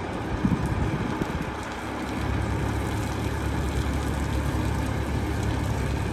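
Renault 320dCi dump truck's diesel engine running while the hydraulic tipper body is raised. About two seconds in, its low running sound grows louder and holds steady.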